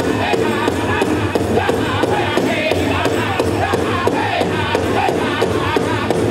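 Powwow drum group singing a chicken dance song over a steady, even beat on the big drum.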